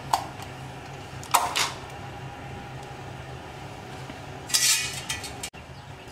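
Kitchen handling knocks: a sharp knock at the start and another about a second and a half in, as the emptied ostrich eggshell halves are lifted away from a steel mixing bowl, then a brief louder clatter about four and a half seconds in, all over a steady low hum.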